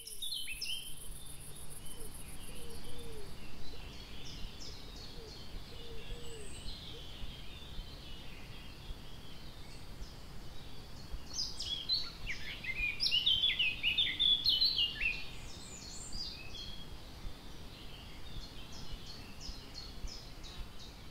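Small woodland birds chirping and calling, with a busier run of calls about halfway through. In the first few seconds an insect, most likely a cricket, trills steadily in the background.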